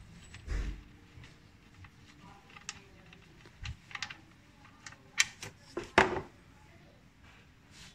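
Scattered light clicks and taps as a gloved hand unscrews the oil drain plug from an engine oil pan, the loudest about five and six seconds in, as the plug comes free and the oil starts to drain.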